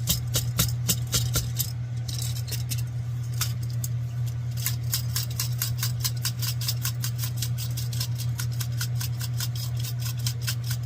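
Hand pump on an MSR liquid-fuel stove's fuel bottle being stroked quickly to pressurize the bottle: a fast, regular run of clicks with a short break about two seconds in. An electric fan hums steadily underneath.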